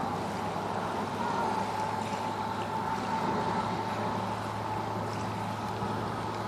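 A steady, distant engine drone holding a constant pitch, a low hum with a higher tone above it, over a light even hiss.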